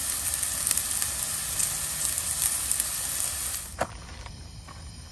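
Diced onions sizzling and crackling as they fry in oil in a nonstick frying pan; the sizzle cuts off suddenly about three and a half seconds in, followed by a single click over a quieter background.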